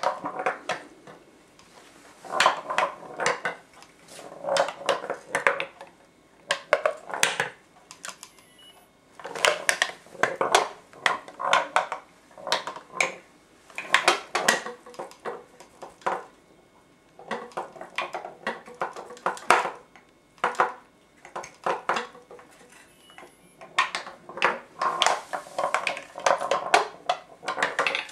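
A copper-foil-covered ball rolling and knocking against the wooden walls of a tilting home-made maze, in rattling runs of clacks every second or two.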